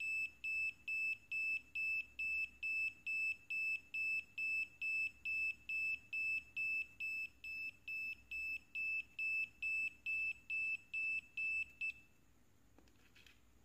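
Buzzer on a homemade NE555/4017 IC tester module beeping repeatedly at a fixed high pitch, a little over two short beeps a second, stopping about twelve seconds in. The steady repeating beep is the sign that the NE555 timer IC under test is good.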